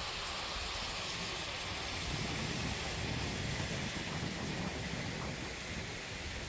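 Steady hiss of a curtain of water falling from a canopy edge and splashing into the river. About two seconds in, a low rumble joins underneath.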